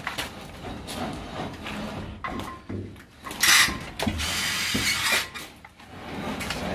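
A 50 mm AAC (aerated concrete) panel being handled into place against wall battens, with knocks and scraping as it is shifted and pressed in. About halfway through there is a sharp loud scrape, followed by about a second of steady rasping.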